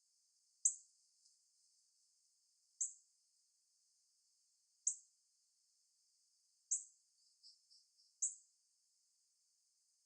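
Female northern cardinal chirping: five short, sharp, high chip notes about two seconds apart, with a few fainter notes just before the last one.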